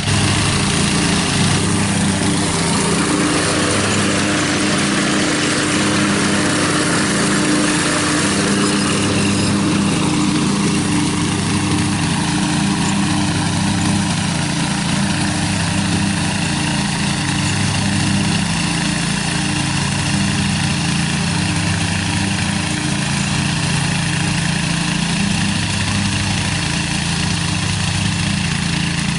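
Old Murray riding lawn mower's engine running steadily as the mower cuts grass with its newly levelled deck.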